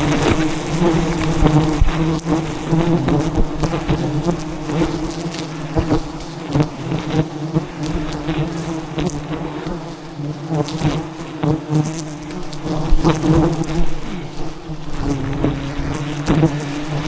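A swarm of giant honey bees (Apis dorsata) buzzing loudly and steadily around the hive, close to the microphone, with scattered clicks and crackles throughout.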